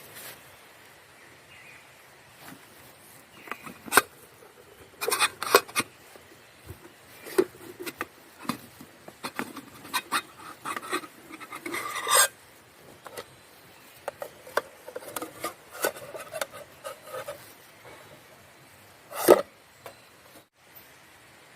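Irregular scraping and rubbing with sharp knocks, objects being handled by hand, loudest in short bursts about four, five, twelve and nineteen seconds in.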